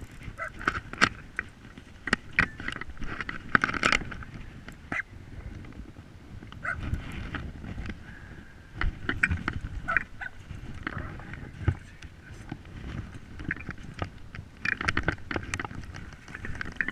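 Hooked salmon splashing and thrashing at the surface close to the bank, in irregular bursts, with knocks and rustling from the spinning rod and landing net being handled.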